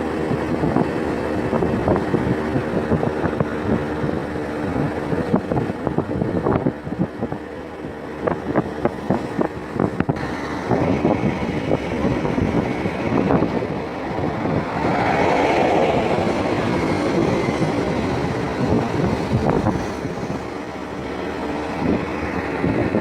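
A vehicle on the move: steady engine hum with road and wind noise and scattered small knocks, swelling briefly about two-thirds of the way through.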